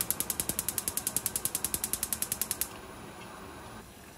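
Gas stove's spark igniter ticking rapidly, about eleven clicks a second, as the burner is lit under a pot of water, then stopping after about two and a half seconds.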